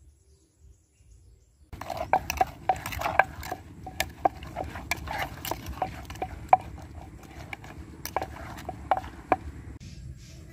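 Pestle knocking and pounding in a wooden mortar as a bamboo-shoot and egg salad is pounded and mixed, irregular sharp knocks about three a second, starting about two seconds in.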